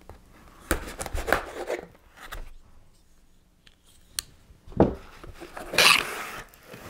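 A folding pocket knife slicing through the tape on a small cardboard box in several scratchy strokes, then a sharp click of the knife being handled a little after four seconds. Near the end, the cardboard flap is pulled open with a short tearing scrape.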